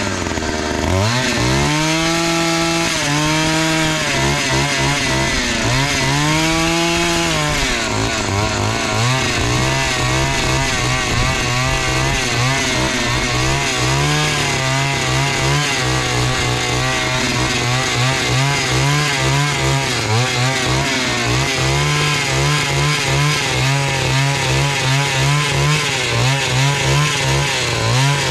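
Petrol one-man earth auger with a small two-stroke engine. It is revved up and down several times in the first few seconds, then held at high revs with a wavering pitch as it bores a post hole into wet, muddy ground.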